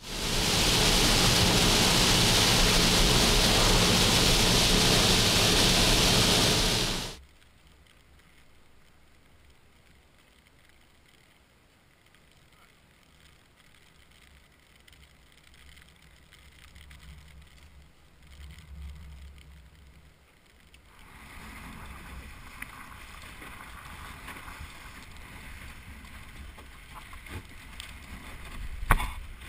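A loud, steady hiss of rain and wind cuts off abruptly after about seven seconds, leaving a quiet stretch of faint wind rumble. From about twenty seconds in, water rushes along the hull of a small homebuilt sailboat sailing fast in choppy water, with one sharp knock near the end.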